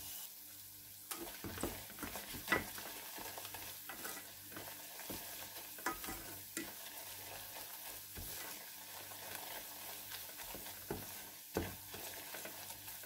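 Sugar with garlic fried in olive oil, ginger, cloves and cinnamon sizzling quietly in a pan as it cooks down to a thick syrup. A spoon stirs it, with scattered taps and scrapes against the pan.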